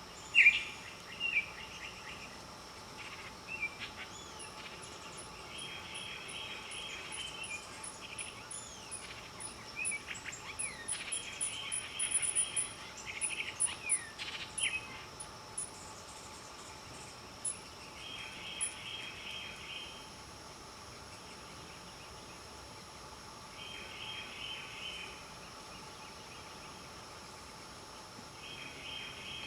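Wild birds calling and singing. One short multi-note song phrase repeats about every six seconds, with a few sharper calls near the start and a string of faint, very high ticks through the first half.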